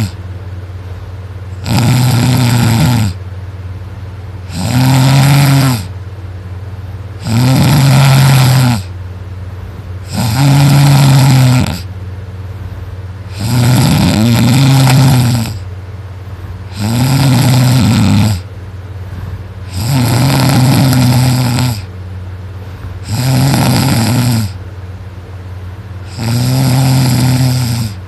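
A person snoring very loudly in deep sleep: about nine snores, one roughly every three seconds, each lasting a little over a second.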